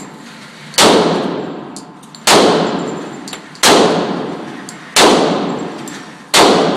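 Five gunshots fired one after another, about a second and a half apart, each sharp crack ringing out in a long echo.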